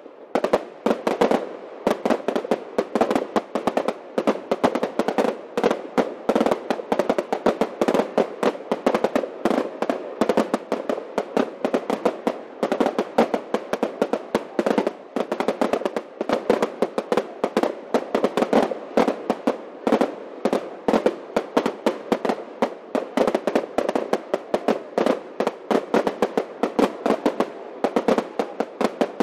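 Fireworks going off in a dense, unbroken barrage of sharp bangs and crackles, many a second.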